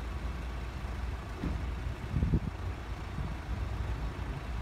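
Road vehicle engines idling at a closed level crossing: a steady low rumble, with a few louder low bumps about two seconds in.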